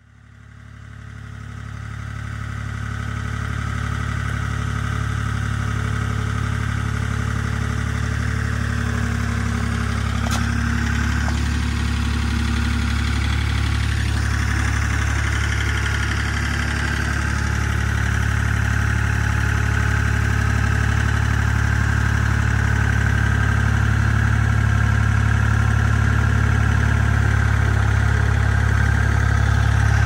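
A vehicle engine running steadily with a low hum, fading in over the first few seconds.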